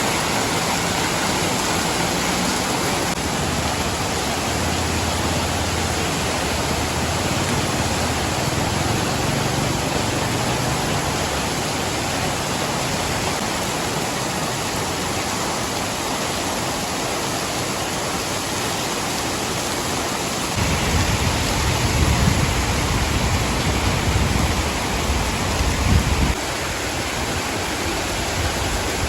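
Steady rushing of water, loud and even throughout. A low rumble joins about two-thirds of the way through and stops suddenly several seconds later.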